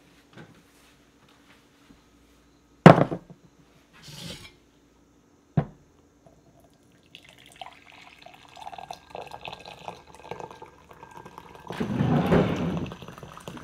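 Coffee poured from a stainless thermal carafe into a ceramic mug, a light trickle at first, then a fuller stream near the end. Before it, two sharp knocks on the counter, the first of them the loudest sound.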